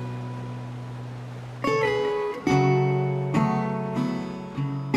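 Background music of acoustic guitar: a strummed chord left ringing and slowly fading, then fresh strummed chords from about one and a half seconds in, roughly one a second.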